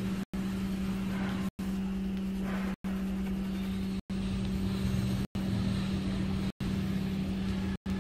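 A steady low hum at one fixed pitch over a haze of noise, broken by brief silent dropouts about every second and a quarter.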